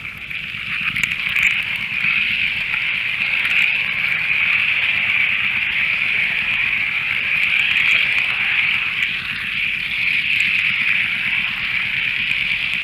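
Model train running on layout track: a steady high whirring with a low hum underneath and scattered faint clicks of wheels on the rails.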